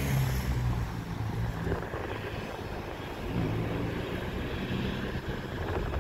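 FS D.245 diesel shunting locomotive's engine running as it slowly moves a rake of Intercity coaches. The engine note is strongest at the start, eases off about a second in, and picks up again from about three seconds in.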